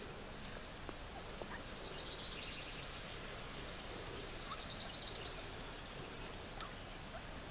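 Steady outdoor background noise with faint bird chirps and a couple of short, rapid high trills.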